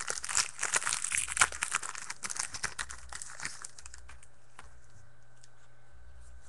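A foil trading-card pack being torn open, its wrapper crinkling and crackling for about the first three seconds. After that there are only a few light clicks as the cards are handled.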